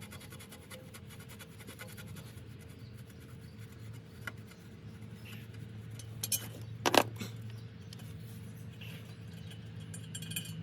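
Hand wrench working an engine bolt: quiet scraping with a few sharp metal clicks, the loudest about seven seconds in, over a steady low hum.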